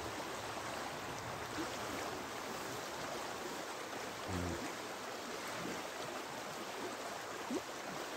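Shallow river running over rocks: a steady rush of water.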